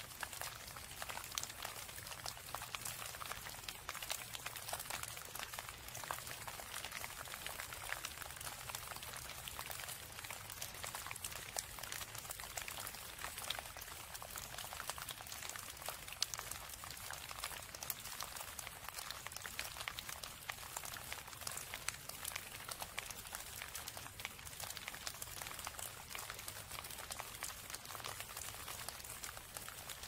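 Rain and running water: a steady fine hiss made of a dense patter of small drops.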